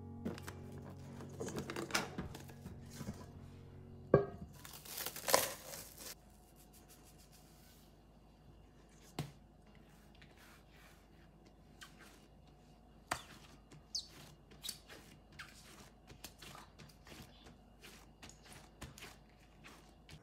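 Hands handling a ball of bread dough, lifting it from a steel mixer bowl and pressing it flat on a silicone baking mat. There is a sharp knock about four seconds in and a short rustling scrape just after, then only faint scattered taps and rubbing. Soft background music fades out in the first few seconds.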